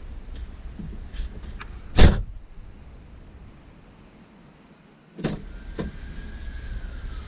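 Car door shutting with a loud thump about two seconds in, after a few small clicks and rustles; the sound then fades low until a sharper knock a little after five seconds.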